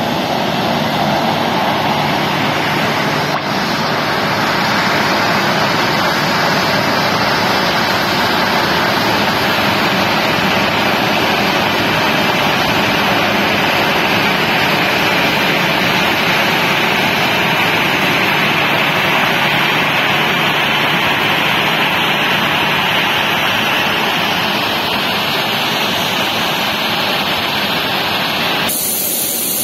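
Boeing 737 airliner's turbofan engines running as the jet taxis, a loud, steady rush of jet noise.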